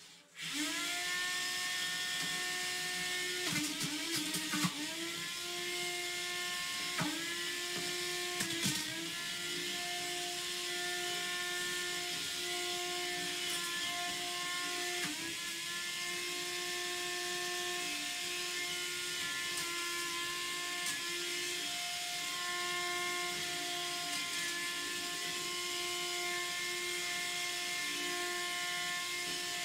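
Antweight combat robot's spinning weapon running at a steady high-pitched whine. Sharp hits in the first nine seconds or so briefly drag its pitch down, and it spins back up after each.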